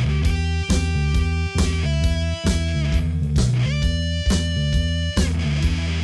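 Background rock music with electric guitar and bass over a steady beat.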